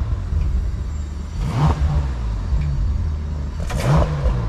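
Bentley Continental GT Speed's W12 engine through its stock exhaust in Bentley mode, idling with two quick throttle blips about two seconds apart, each rising and falling in pitch.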